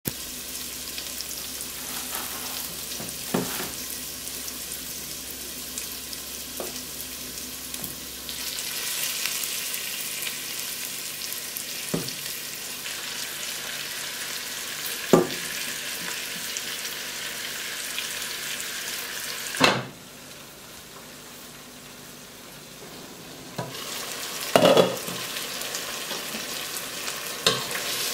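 Chicken, onions and spices sizzling in a non-stick pot, stirred now and then, with the spoon knocking and scraping against the pot several times. The sizzle dips quieter for a few seconds past the middle.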